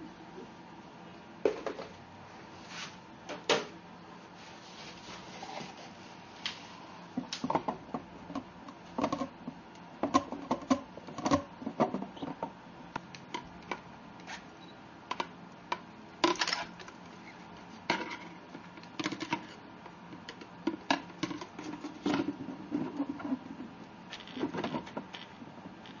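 Irregular clicks, taps and scratches of a rioc (giant predatory cricket) and a giant house centipede grappling on a hard arena floor, their legs and bodies knocking against the surface, over a faint steady hum.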